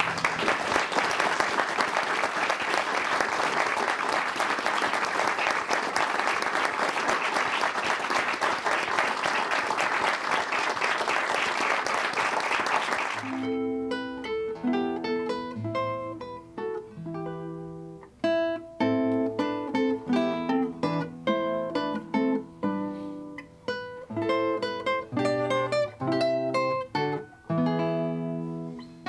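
An audience applauding, dense clapping that cuts off abruptly about thirteen seconds in. Solo classical guitar music follows: plucked melody notes with bass notes underneath.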